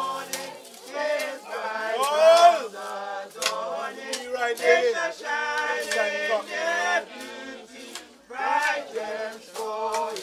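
A group of mourners singing a hymn together, men's and women's voices, with a few sharp clinks heard through the singing.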